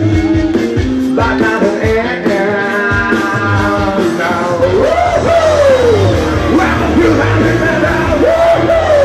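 Rock song: a man sings and shouts over a band with a steady drum beat, holding long sliding shouted notes about five seconds in and again near the end.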